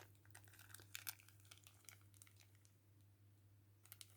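Faint crinkling of small plastic bags of diamond-painting drills being handled. There are a few rustles in the first second and again near the end, over a low steady hum.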